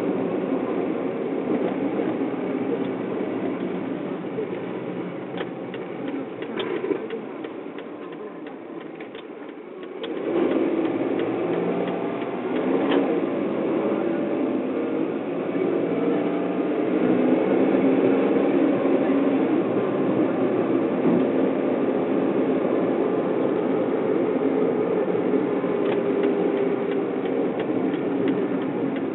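Car engine and tyre noise heard from inside the cabin while driving on a town street. It dies down for a few seconds about a third of the way in, then grows louder again as the car picks up speed.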